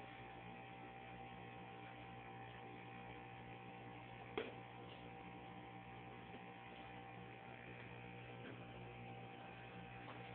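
Faint, steady electrical hum with a thin high whine, broken by one sharp click about four seconds in.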